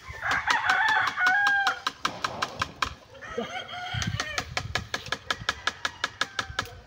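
Rooster crowing, one long call in the first two seconds, then a shorter call about three seconds in. Under it runs a rapid, even series of sharp clicks, about five a second.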